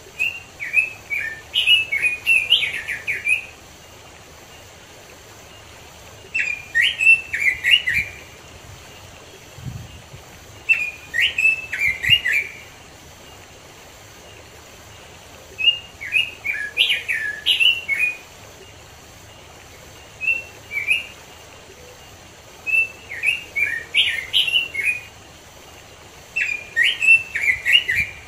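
Pekin robin (red-billed leiothrix) singing: about seven quick, warbling phrases of rapid clear notes, each one to two seconds long and separated by a few seconds of pause, over a faint steady background hiss.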